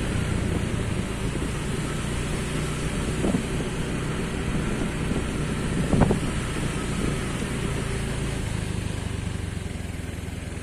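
Motorcycle engine running steadily while riding along, with a few short gusts of wind on the microphone, the strongest about six seconds in. Near the end the engine note lowers and gets quieter.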